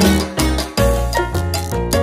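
Upbeat Latin salsa-style background music with a steady beat and percussion.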